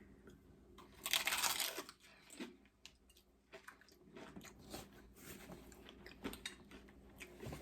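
Biting into a taco, with a loud crunch about a second in, then close-up chewing heard as a string of small clicks.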